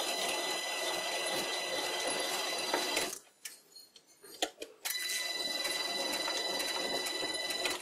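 Vintage sliding-spindle bench lathe running on a frequency drive with a steady high whine, a scraper cutting a thread into a spinning wooden workpiece. The spindle stops for about two seconds a little after three seconds in, with a few clicks, then runs and cuts again until near the end.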